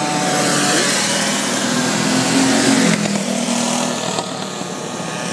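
Go-kart engines racing, one kart passing close by at speed, its engine pitch dropping as it goes past about three seconds in.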